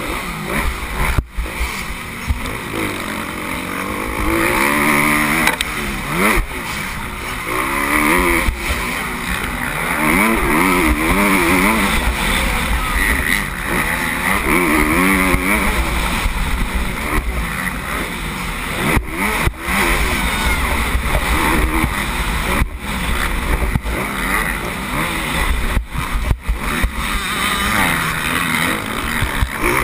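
Motocross bike engine heard from an onboard camera, revving hard and easing off over and over as the rider works the throttle and gears around the dirt track, its pitch swooping up and down. A few brief sharp cutouts break the sound.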